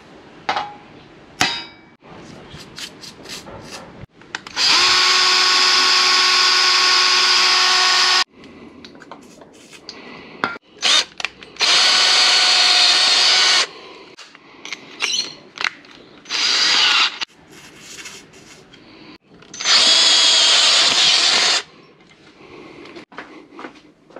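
A handheld power tool running in four bursts on a steel bracket clamped in a bench vise, each burst a steady whine that starts and stops abruptly, the longest about three and a half seconds. Before the first burst there are a few sharp metallic taps.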